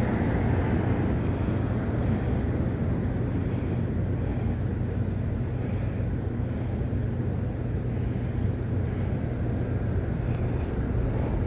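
Steady vehicle running noise, a low engine hum under even road noise, as from a moving vehicle.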